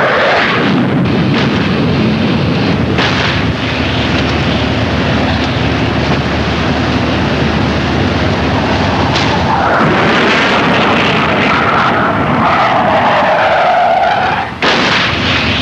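A-4 Skyhawk jet engine running at high power with a loud, steady rush. Later a jet passes with a whine that rises and then falls. The sound cuts off abruptly near the end.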